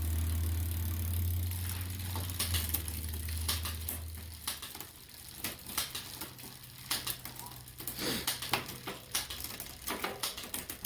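Bicycle drivetrain turned by hand during a rear derailleur adjustment: a low steady run of the chain over the cogs for about four seconds, then it stops, followed by irregular clicks and ticks of the shifter and the chain changing cogs on the rear cassette.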